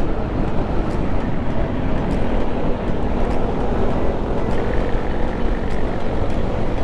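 A motor scooter's engine running steadily at road speed under a heavy rush of wind and road noise.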